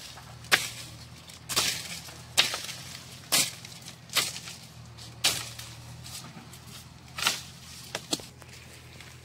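Walnut tree branches struck and beaten to knock the nuts down: a series of about nine sharp swishing hits through the leaves, roughly one a second, the last two close together near the end.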